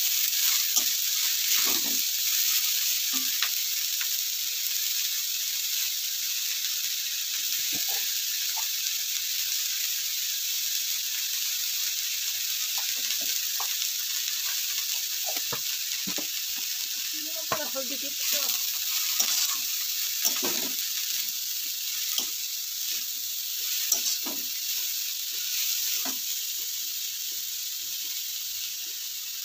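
Shredded cabbage sizzling in oil in a metal kadai on a gas stove, with short scrapes and clinks of a metal ladle stirring it now and then. The sizzle slowly gets quieter.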